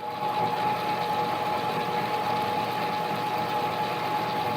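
Mini lathe running steadily, its motor and spindle giving an even mechanical hum with a steady high-pitched whine.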